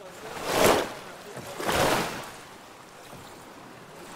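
Water swishing and lapping against a small wooden boat on a lake, in swells about a second apart, with a lull of about two seconds before a last swell at the end.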